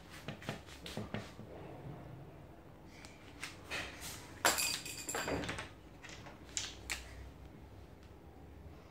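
Dry-erase markers on a whiteboard: light taps and short scratchy strokes, with a louder cluster of clicks and scrapes about halfway through.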